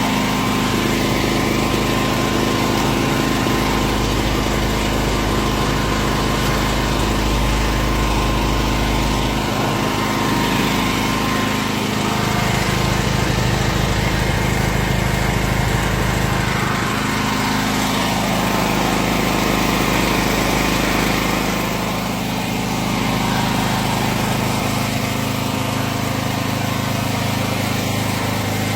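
Husqvarna 8.5 kVA generator engine, converted with a dual-carburettor kit, running steadily on LP gas, its note shifting slightly around ten and seventeen seconds in.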